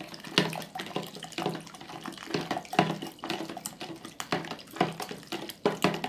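Vinegar pouring from a plastic bottle into a plastic measuring jug while a spoon stirs coarse salt into it, with many irregular clicks and scrapes of the spoon against the jug.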